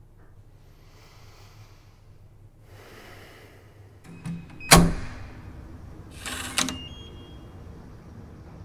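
Soft rustling, then a few clicks and one loud, sharp bang about halfway through, followed by a short scraping rush ending in a thud.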